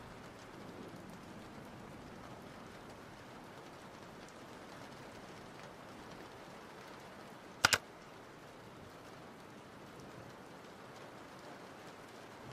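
Steady soft hiss with a single sharp double click about two-thirds of the way through, typical of a computer mouse button.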